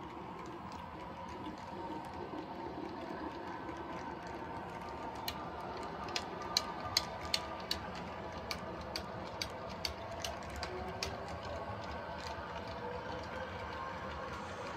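Model railway bulkhead flatcars rolling past on the track: a steady rolling sound, with a run of sharp clicks from the wheels, two or three a second, through the middle.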